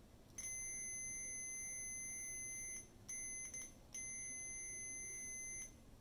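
Fluke 179 multimeter's continuity beeper sounding a steady high beep three times: a long beep, a short broken one, then another long beep. The beep means the banana-plug patch cord conducts from end to end.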